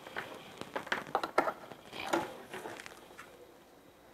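Handling noise from a power cord being handled and plugged in: a scatter of light taps, clicks and rustling over the first two seconds or so, then quieter.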